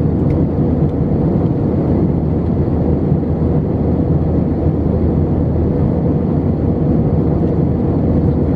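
Steady cabin noise inside an Airbus A320 in flight, heard from a window seat over the wing: a low, even roar of the engines and of air rushing past the fuselage.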